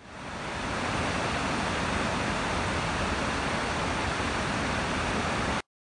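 Steady rushing of open water, an even hiss-like noise with no breaks, fading in over the first half second and cutting off abruptly near the end.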